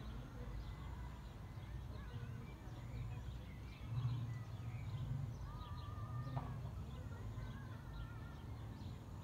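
Outdoor ambience: small birds chirping and twittering in the distance over a low rumble on the microphone that swells briefly about four seconds in.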